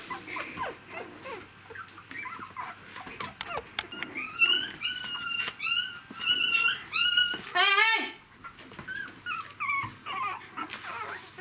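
Three-week-old poodle puppies whimpering and squealing. Soft whines at first, then a run of loud high-pitched squeals about halfway through, ending in one long squeal, before the whining drops back to soft.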